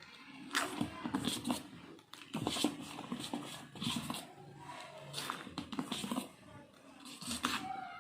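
Spoon scraping and stirring a dry flour mixture in a vessel: irregular short scraping strokes. A brief pitched call comes in faintly about five seconds in and again near the end.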